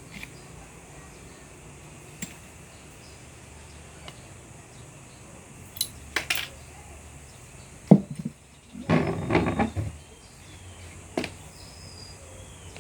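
Parts of a Glock 9×19 pistol clicking and clinking as it is taken apart: a few scattered sharp clicks, the loudest about eight seconds in, followed by about a second of rattling and handling.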